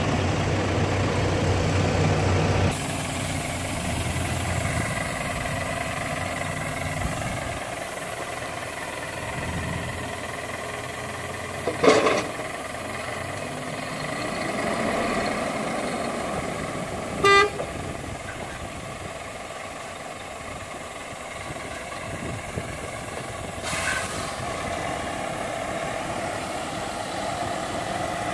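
Heavy diesel engines of a truck and a backhoe loader running during an attempt to tow the sand-stuck truck free, with a loud knock about 12 seconds in and a short horn toot about 17 seconds in.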